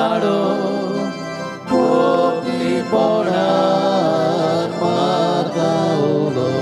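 Voices singing a short sung response over organ accompaniment, in phrases with brief breaks. This is the sung reply to an intercession in the Prayer of the Faithful at Mass.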